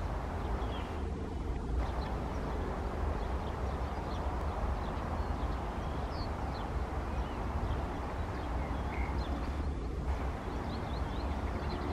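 Distant jet noise from an Airbus A319-111's CFM56 engines at takeoff thrust: a steady, deep rumble with no rise or fall. Small birds chirp briefly over it throughout.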